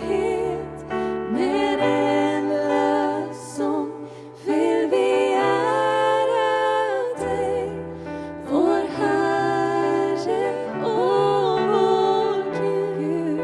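Music: a Christian worship song, voices singing with gliding, held notes over sustained chords and bass notes.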